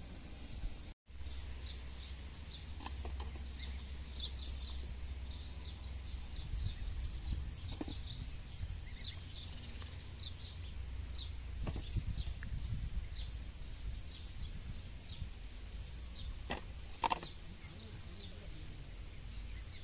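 Small birds chirping over and over in short, falling calls above a steady low outdoor rumble, with a couple of sharp clicks near the end.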